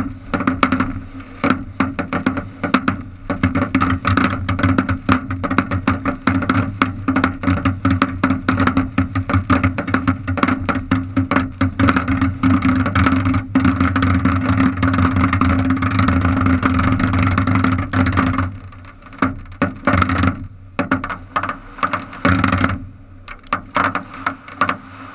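Firework fountain burning with dense, rapid crackling over a steady rush. About 18 seconds in it dies down to scattered crackles, which stop shortly before the end.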